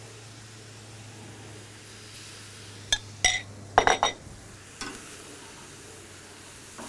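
A metal cooking utensil clinking a handful of times around the middle, sharp and ringing, while pork cooks on the grill with a faint sizzle. A low steady hum underneath stops about four seconds in.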